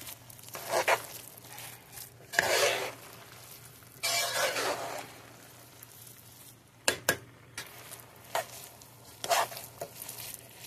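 A spatula stirring and scraping fried rice around a hot pan, over a faint sizzle. The scrapes come irregularly, the longest about four seconds in, and near the end the utensil knocks against the pan with a few sharp clicks.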